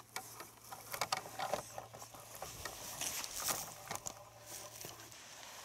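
Irregular rustling and crackling with a run of sharp clicks.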